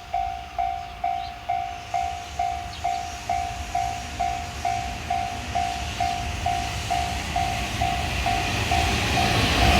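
Japanese level-crossing warning bell ringing, a single electronic tone repeating about twice a second. Under it the low rumble of an approaching freight train grows louder over the last few seconds.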